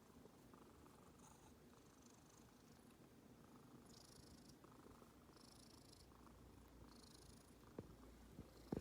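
Domestic cat purring steadily and faintly, with a sharp click near the end.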